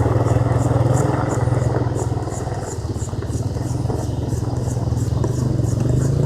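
An engine running steadily with a low, even drone that rises slightly in pitch near the end. A faint high chirp repeats about two or three times a second over it.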